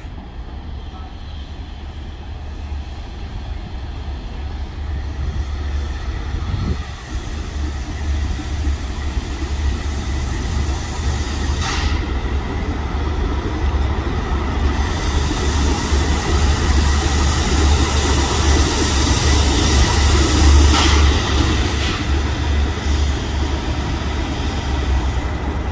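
Class 37 diesel locomotive with its English Electric V12 engine running as it hauls an engineering train of tank wagons toward and past, the low rumble growing steadily louder as it nears. A hiss rides over it from about eight seconds in, strongest in the second half.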